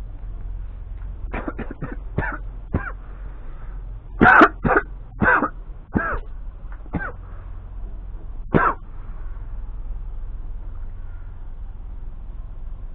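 A person coughing close to the microphone in a fit of short coughs: a quick cluster, then several louder coughs, then one last cough.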